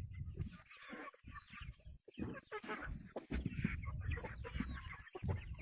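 Chickens clucking and squawking loudly while begging for food, in a run of short, broken calls.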